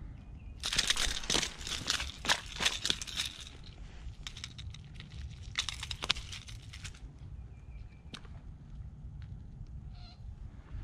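Rustling, scraping handling noise in two spells of quick crackling bursts, the first about a second in and louder, the second from about four to seven seconds in, followed by a single sharp click.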